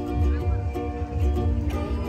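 Ukulele strummed in a steady rhythm, with a girl's voice singing along.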